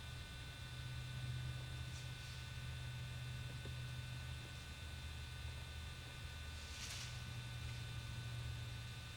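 Steady low electrical hum with a faint, steady high whine, and a brief soft rustle about seven seconds in.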